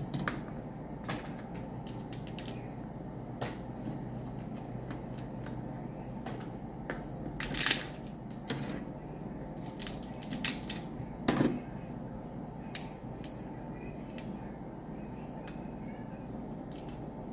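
Blue crab shells being cracked and broken apart by hand while eating: irregular snaps and crunches, loudest about halfway through and again a few seconds later, over a steady low hum.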